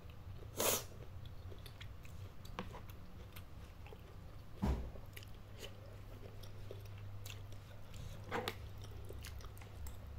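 Close-miked chewing of spicy noodles and vegetables, with three louder sharp bites about a second in, midway and near the end, and small wet clicks in between, over a low steady hum.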